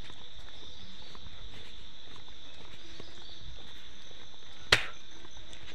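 Steady insect chorus, one continuous high-pitched note, in a field. About three-quarters of the way through there is a single sharp click, the loudest sound.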